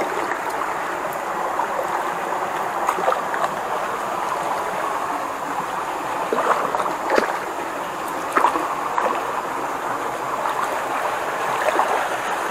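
Steady rush of shallow, muddy stream water, with a few short light splashes as a gillnet is hauled through it by someone wading.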